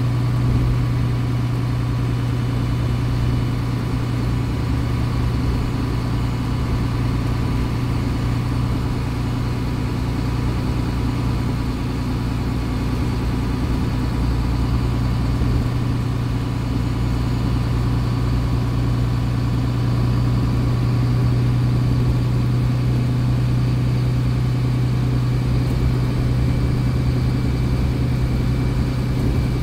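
Diesel engine of a 2015 MAN A20 Lion's City Ü city bus idling steadily while the bus stands still, heard from inside the passenger cabin as a deep, even hum with a faint higher whine.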